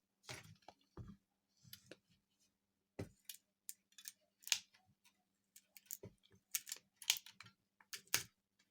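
Centro Instrument ratchet pruning shears cutting through a 24 mm walnut branch: a series of sharp clicks and snaps as the ratchet steps and the blade bites, coming closer together and louder in the second half.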